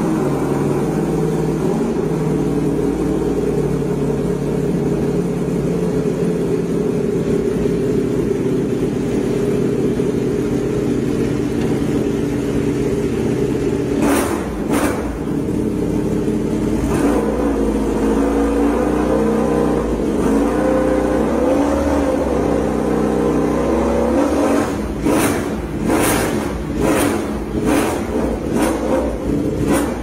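Ducati Panigale V4's V4 engine running through a Termignoni exhaust, freshly started and idling steadily. It is blipped twice in quick succession about fourteen seconds in, the idle wavers a little after that, and near the end it is revved in a rapid series of short throttle blips.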